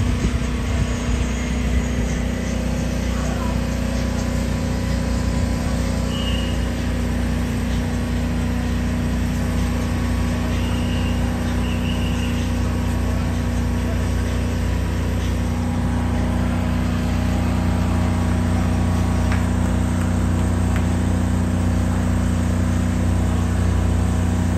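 Town street ambience: a steady low engine hum from traffic, with a few faint short high chirps now and then.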